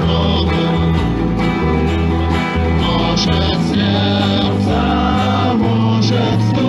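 A rock song played live: a singing voice over guitar and a steady, driving bass line.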